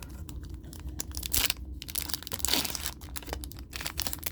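Foil booster pack wrapper crinkling and tearing as it is pulled open by hand: a run of short crackles, with louder rips about a second and a half and two and a half seconds in.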